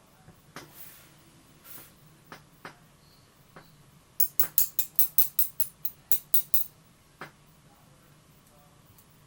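Small metal lock parts clicking and tapping as the springs are taken out of a disassembled pin-tumbler challenge lock: a few scattered clicks, then a quick run of sharp ticks, about six a second, for a couple of seconds in the middle, and one more click after.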